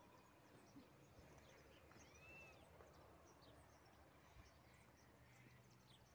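Near silence: faint open-air ambience with a few scattered, faint high bird chirps and one short whistled note about two seconds in.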